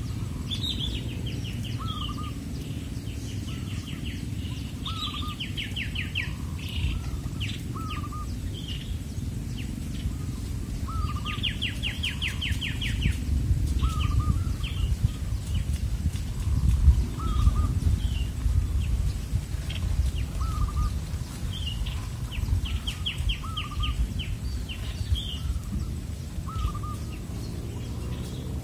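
Birds calling: a short hooked note repeating about once a second, with several bursts of fast, higher trills. A steady low rumble runs underneath.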